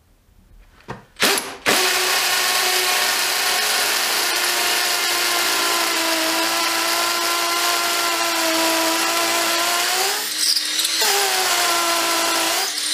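Makita DTP141 cordless 4-mode impact driver drilling into brick: a short blip of the trigger, then a long steady run with a high motor whine. About ten seconds in the motor slows and briefly stops, then runs again until it cuts off near the end, the dust clogging in the hole.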